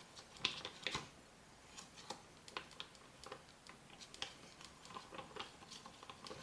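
Faint, irregular scraping and tapping of a spatula mixing fiberglass Bondo body filler with its hardener.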